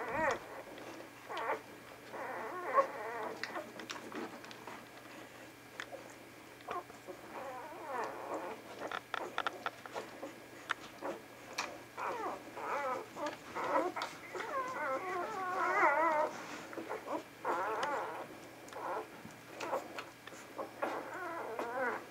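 Vizsla puppies about a week old squeaking and whimpering while they nurse, in short wavering high cries that come thickest in the middle of the stretch.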